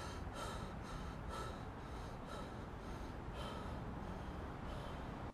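A man panting and gasping hard through his open mouth, quick heavy breaths about two a second, the laboured breathing of a man in shock from a gunshot wound.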